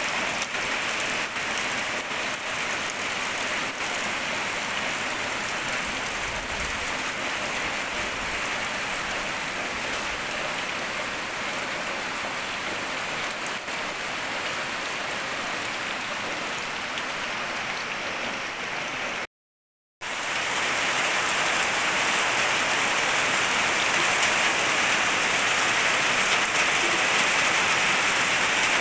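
Steady hiss of falling water, even and unbroken; it cuts out for a moment about two-thirds of the way through and resumes a little louder.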